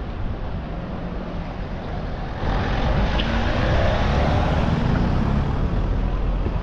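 Busy city street: traffic going by, mixed with the steady rumble of inline skate wheels rolling over paving stones. It gets clearly louder about two and a half seconds in, with a vehicle engine showing faintly for a couple of seconds after that.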